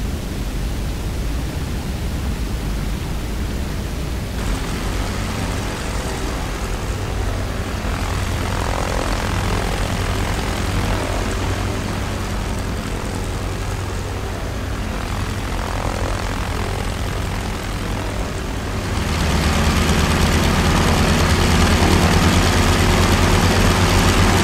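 Propeller biplane piston engines droning steadily over a rushing wash of wind and sea noise; the engine sound grows louder and more strongly pulsing about 19 seconds in.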